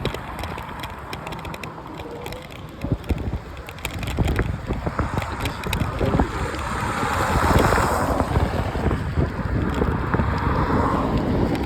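Wind rumbling and buffeting on the microphone, swelling to its loudest about seven to eight seconds in.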